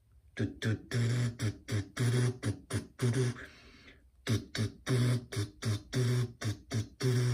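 A man's voice making rhythmic, wordless syllables, like beatboxing or a sung 'da-da-da' tune, with a short break midway.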